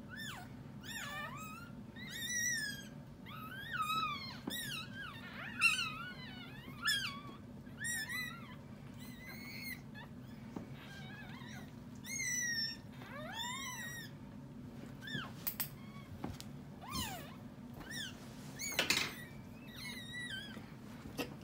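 Newborn miniature schnauzer puppies squeaking and mewling, many short high rising-and-falling cries in quick succession, over a steady low hum.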